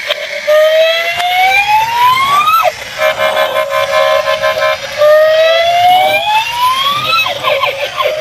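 Electronic toy siren playing from a small speaker, with almost no bass. It makes a wail that rises for about two seconds and then drops away, and it does this twice, with a choppy steady tone in between.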